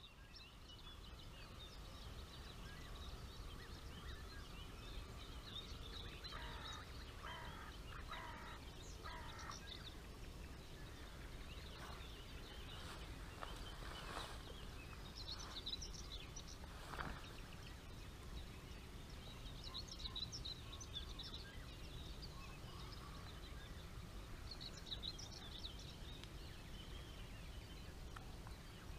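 Birds singing and calling over a low, steady outdoor rumble, with a quick run of four calls about seven seconds in.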